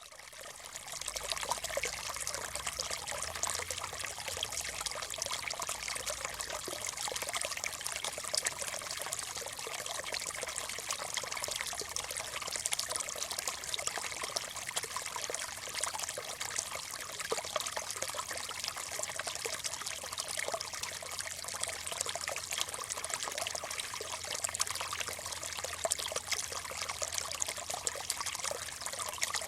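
Small stream trickling steadily, a dense bubbling water sound that fades in over the first second.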